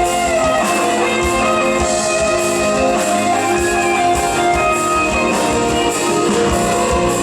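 Live instrumental music with a steady drum beat under sustained melodic lines, with no singing.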